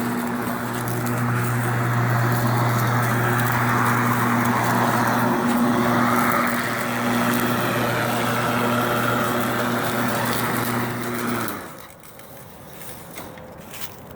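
Homemade battery-powered remote-control lawnmower running with a steady electric hum and whir. It shuts off about eleven and a half seconds in.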